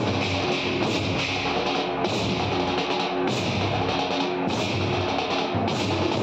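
Loud procession dance music with a steady drum beat and a bright crash about once a second.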